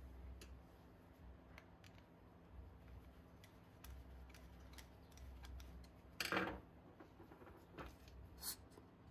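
Faint clicks and small metal handling sounds from a trolley jack's hydraulic cylinder as its steel ram is worked in and out through the new seals with no oil in it. There is one short louder rub about six seconds in and a shorter, sharper one near the end.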